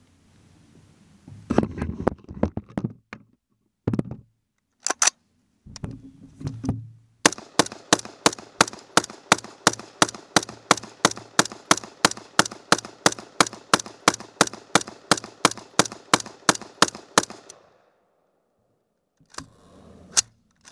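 Clicks and knocks of handling an AR-15-style rifle, then the rifle fired semi-automatically in a rapid, evenly spaced string of shots lasting about ten seconds. The string ends when the magazine runs empty and the bolt locks back.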